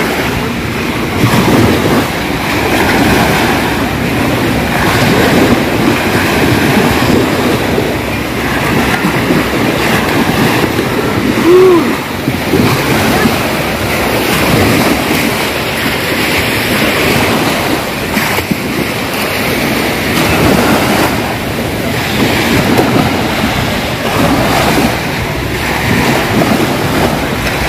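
Small sea waves washing onto a sandy beach, with wind blowing across the microphone; the sound swells and eases without stopping.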